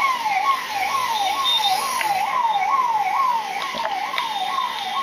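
Electronic siren of a police vehicle, sweeping up and down in pitch about twice a second without a break.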